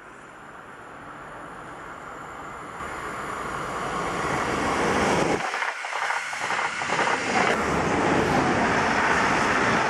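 Electric commuter train, a Stadler FLIRT, approaching at speed and passing close by: a rushing noise of wheels on rails that swells over the first five seconds and then stays loud.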